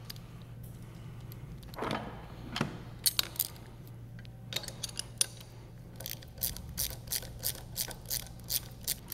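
Socket wrench and ratchet loosening the bolts that hold the grinder pump's motor head to its motor casting: sharp metallic clicks and clinks, scattered at first, then a regular run of about three clicks a second near the end.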